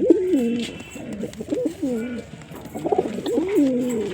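Pigeon cooing: a run of low coos, each sliding down in pitch, in three bouts, at the start, around the middle and again near the end.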